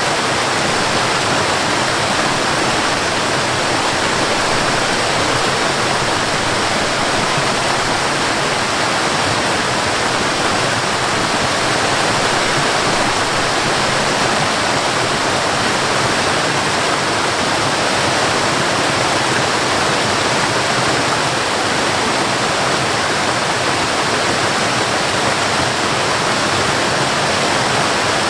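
Cascading water falling steadily, a constant even rush without change.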